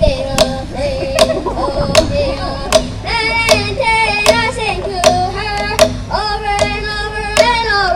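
A boy singing a pow wow hand-drum song into a microphone, beating a hand drum in a steady beat under his voice.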